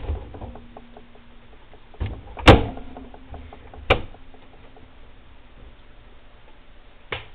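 Refrigerator door and its contents being handled: a few knocks and clicks, with a loud thump about two and a half seconds in and a sharp click near four seconds.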